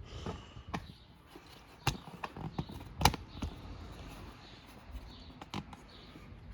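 Scattered light clicks and knocks of small parts and tools being handled during tractor headlight wiring work, with two sharper knocks about two and three seconds in.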